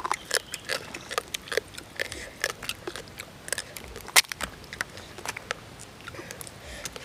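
Boiled crab being eaten by hand: irregular crunching and cracking of the shells with chewing, one sharper crack about four seconds in.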